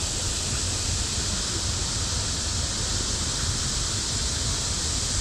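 Steady, even rush of a waterfall's falling water, close by.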